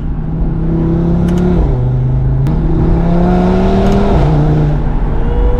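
Audi RS3's 2.5-litre inline five-cylinder engine pulling hard under acceleration, its note climbing through the revs and dropping sharply at two upshifts, about one and a half seconds in and again near four seconds.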